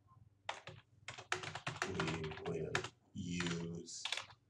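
Typing on a computer keyboard: runs of quick key clicks, with a voice speaking indistinctly over the typing around the middle.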